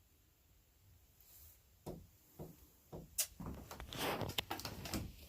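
A few light knocks and clicks begin about two seconds in, followed by rustling and clattering, like things being handled or moved around.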